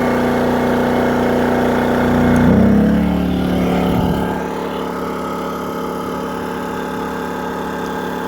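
Propane generator engine switched from low idle to high idle: its running note shifts about two and a half seconds in, swells briefly, then settles into a steady, slightly higher-pitched groan.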